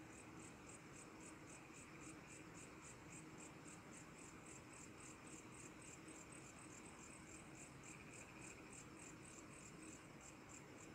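A cricket chirping at night in a faint, even rhythm of about four pulses a second, over a faint steady hum.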